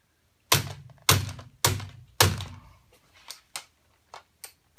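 Four hard hammer blows, about half a second apart, on a wrench set on the tight nut of a right-angle drill attachment to break it loose. They are followed by a few light metal clicks as the wrench and attachment are handled.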